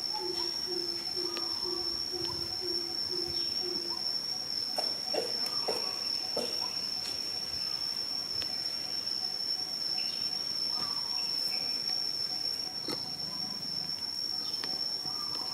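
Steady, high-pitched insect drone of crickets or cicadas. A low call repeats about twice a second for the first four seconds and then stops, with a few faint short chirps and clicks.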